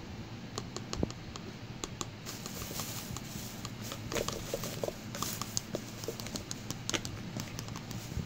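Light clicks and taps of slime-making materials being handled, likely the glue bottle and mixing container, with two brief hissy bursts about two and five seconds in.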